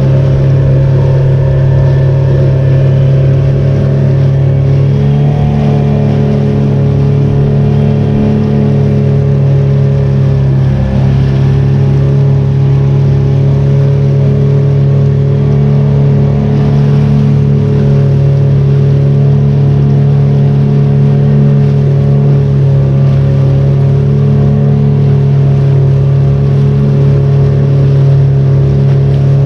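Small tour boat's engine running steadily at cruising speed, with a low, even drone.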